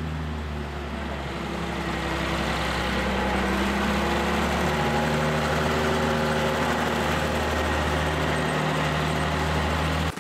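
Farm tractor's diesel engine running steadily, picking up a little in speed and loudness a couple of seconds in; the sound cuts off suddenly near the end.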